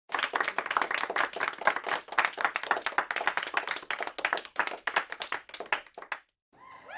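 A group of people clapping, with individual claps clearly separate, that thins out and stops about six seconds in. Just before the end, a crowd's cheering starts to swell.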